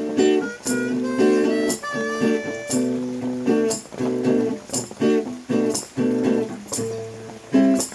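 Improvised music on a guitar: chords strummed in a steady rhythm, with picked higher notes over them in the first few seconds.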